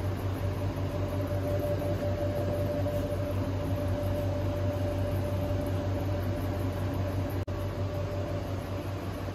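Steady mechanical hum: a low drone with a fainter steady whine above it, cutting out for an instant about seven and a half seconds in.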